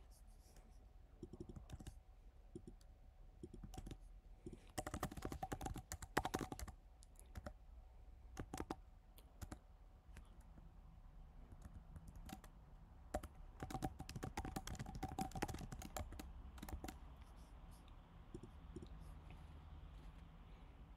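Typing on a computer keyboard: faint key clicks in irregular bursts, busiest about five seconds in and again from about thirteen to sixteen seconds.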